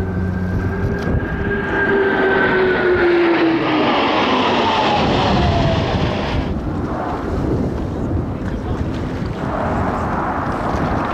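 Several US Navy F/A-18C Hornet jets passing in formation, a loud jet-engine roar with a whine that falls steadily in pitch as they go by. The high part of the roar drops away abruptly about two thirds of the way in, and the low roar carries on.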